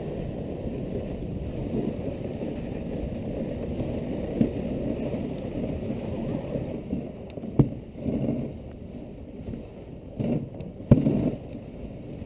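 Dog sled running over a snow trail: a steady low rumble and scrape of the runners, easing after about seven seconds, with several sharp knocks from the sled in the second half.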